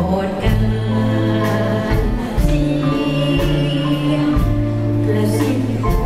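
A woman singing a Thai popular song into a microphone, backed by a live band with held bass notes and drums.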